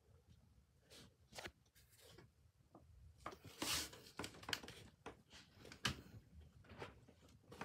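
Faint, irregular small clicks and light scrapes, a few a second, with slightly louder ticks about three and a half and six seconds in.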